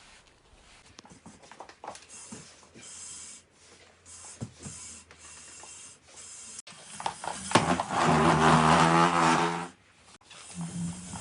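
Chair legs dragged across a floor. A soft scraping with a few knocks comes first, then a loud pitched grinding groan from about seven to ten seconds in, and a shorter groan near the end.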